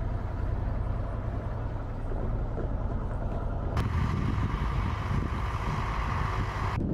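Su-25 attack jet's twin turbojet engines running on an airfield, a deep steady rumble. About four seconds in the sound cuts to a steady high whine over the rumble.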